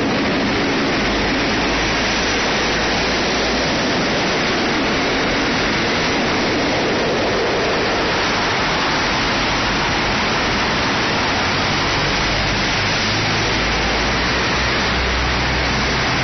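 Steady road traffic noise from cars driving past, an even hiss of tyres and engines with low rumbles about a second in and again over the last few seconds.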